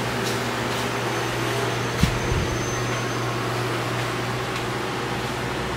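Steady low mechanical hum of indoor room tone, with a single faint click about two seconds in.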